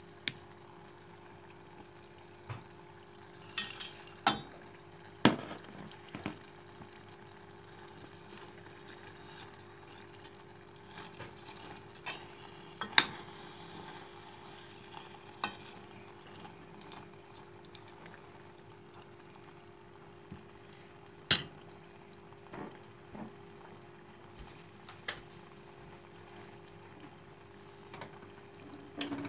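Metal spoon stirring thick semolina halwa in a steel pot on the stove, with a low sizzle and sharp clinks of spoon on pot now and then, over a steady hum.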